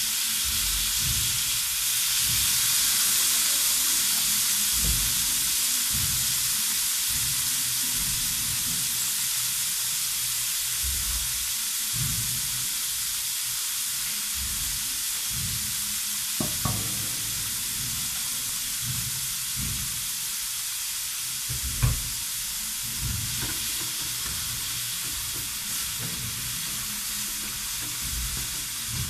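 Sliced tomatoes, onions and garlic sizzling in hot oil in a metal wok, with a spatula scraping and knocking against the pan as they are stirred. One sharper knock comes about two-thirds of the way in.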